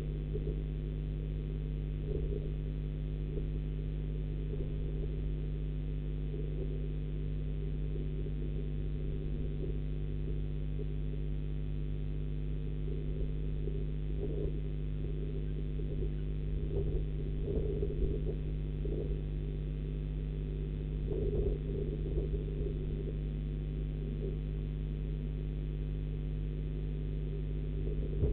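Steady electrical hum of a nest-box camera's microphone, several low tones held level, with irregular soft low rumbles and bumps now and then.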